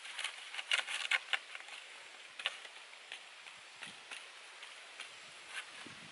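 Hands pressing and patting a disc of wet clay on a dry leaf, the stiff leaf crackling: a quick run of sharp clicks about a second in, then scattered single ticks.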